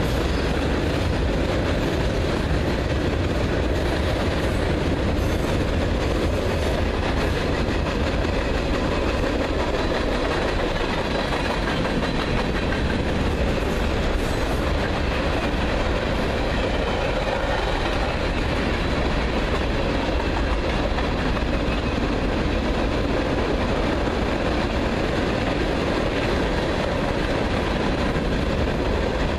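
Freight train cars rolling past at speed: a steady noise of steel wheels on rail from a long string of loaded hoppers, boxcars and tank cars.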